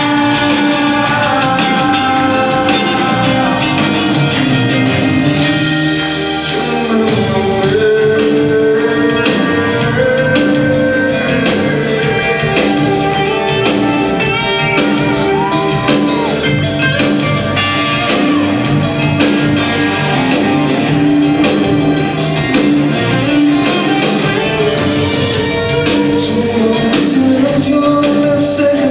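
A live band playing a song with a singer's voice over it, loud and continuous in concert.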